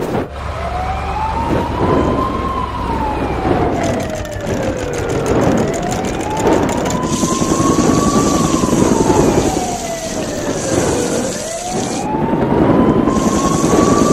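A wailing siren, rising and falling slowly about every five seconds, over vehicle noise. A steady high hiss joins about halfway through.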